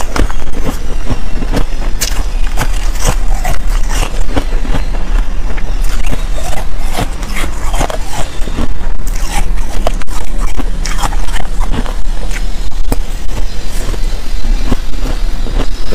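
Close-miked chewing of soft shaved "cotton" ice: a dense, continuous run of soft crunches and crackles, with a metal spoon scooping and scraping through the ice.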